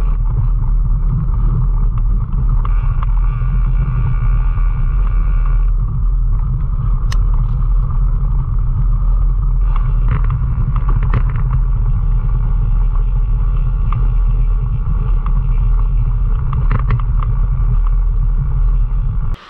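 Mountain bike riding fast over a rocky gravel trail: a steady heavy rumble of wind buffeting a camera mounted on the bike, with tyre crunch on the stones and sharp clicks and rattles, most of them in the second half.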